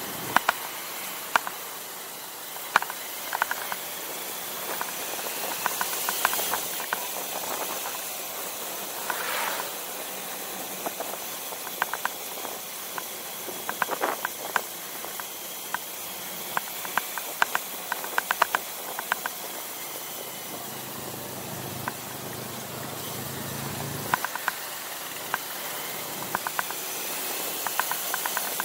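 Steady hiss of wind and road noise from a ride on a small motorbike, broken by many short sharp clicks and rattles. A low engine hum comes in about twenty seconds in and stops a few seconds later.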